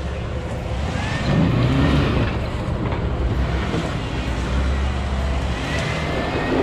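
Jeep engine running under load as it climbs an off-road trail obstacle, its revs rising and falling about one to two seconds in.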